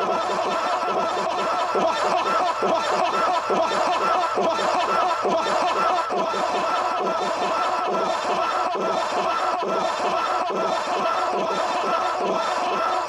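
A steady, dense layer of overlapping laughter-like voices chattering and warbling without pause, part of an artificial creepy ambience loop.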